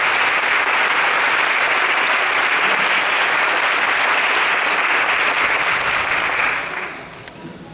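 Audience applauding steadily, the applause dying away near the end.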